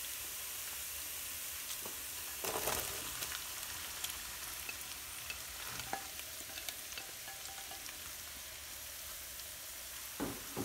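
Crushed ginger and garlic sizzling steadily in hot oil in a nonstick pan. A few seconds in there is a louder rush as sliced red onions are tipped in from a bowl and scraped off with a spoon, with a few clinks.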